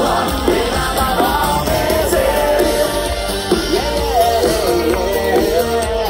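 Live rock band playing a song, with a singer's voice carrying the melody over a heavy bass.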